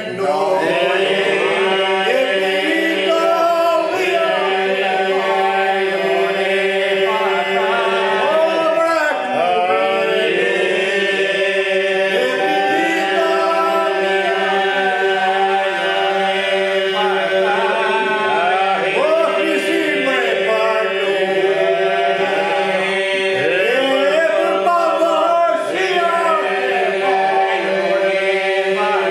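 A group of men singing Albanian iso-polyphonic folk song a cappella: the group holds a steady drone while lead voices weave a bending, ornamented melody above it.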